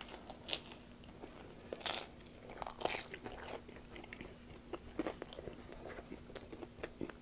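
Close-up chewing and biting of crisp pizza crust: irregular crunches and crackles, with louder bites about two, three and five seconds in.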